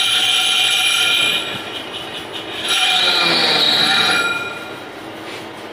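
Metal lathe cutting: the tool squeals against the turning workpiece, a high ringing squeal of several tones that breaks off about a second and a half in, comes back, and fades again after about four seconds, with the machine running more quietly in between.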